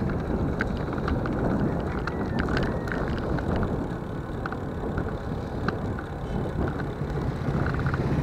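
A motorcycle running at steady riding speed, heard through heavy wind buffeting on the helmet or handlebar microphone, with scattered light ticks and rattles.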